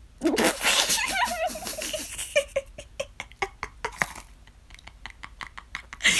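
A person laughing, with a wavering voiced start followed by a run of short broken bursts of laughter.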